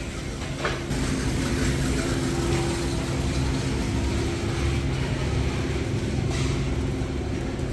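Steady low mechanical hum with a few steady pitches, with faint brief clicks about a second in and again near the end.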